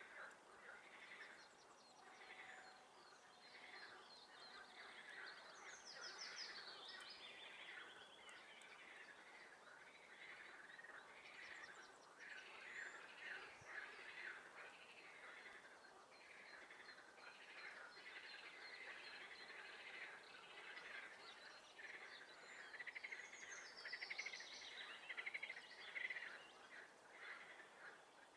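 Faint chorus of frogs calling continuously as a dense, rapid pulsing, with songbirds singing over it. A higher bird phrase stands out about six seconds in and again near the end.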